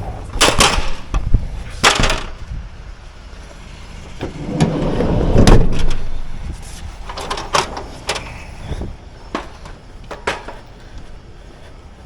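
Doors opening and shutting: several sharp knocks and clunks, with a louder rushing swell that builds and fades about halfway through.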